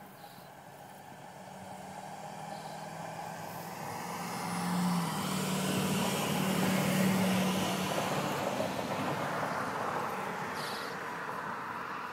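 A vehicle passing by: a rushing noise with a low hum under it, swelling to its loudest about halfway through and then fading away.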